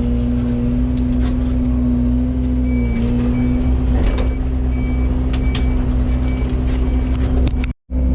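Yanmar VIO80 excavator's diesel engine running steadily under load. From about a third of the way in, its travel alarm beeps a bit under twice a second, and a few short knocks of wood or brush come through. The sound cuts out for a split second near the end.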